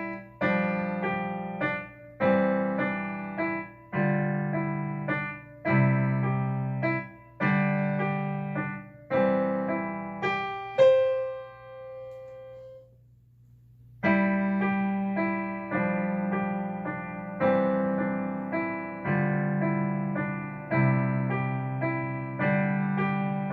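Beginner piano pieces played slowly, phrases of chords over low bass notes. About eleven seconds in a final note is held and dies away into a short pause, and playing picks up again about three seconds later.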